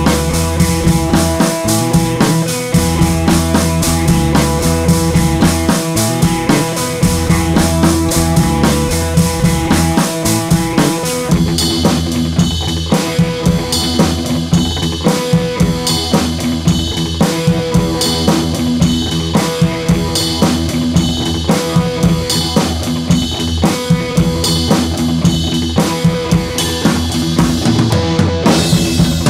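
Background music with a steady drum-kit beat under held instrumental tones, growing brighter and fuller about twelve seconds in.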